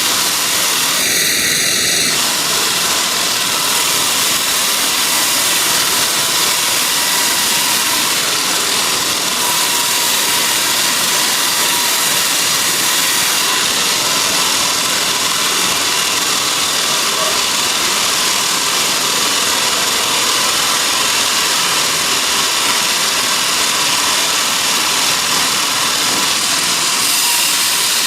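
Sawmill machinery running steadily with a dense, hissy mechanical noise, and a brief high whine about a second in.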